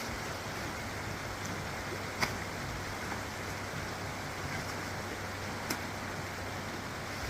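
Steady rush of running floodwater, with two short sharp clicks about two and five and a half seconds in.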